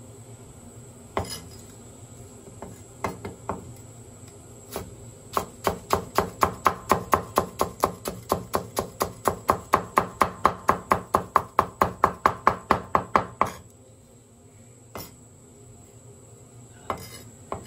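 Chinese cleaver chopping peeled ginger on a wooden cutting board. A few single knocks come first, then a fast, even run of about four chops a second for around eight seconds as the slices are cut into thin strips, stopping suddenly.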